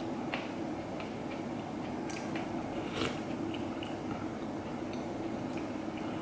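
A person chewing and eating spoonfuls of tom yum soup, with scattered wet mouth smacks and a few short sharp clicks over a steady low hum.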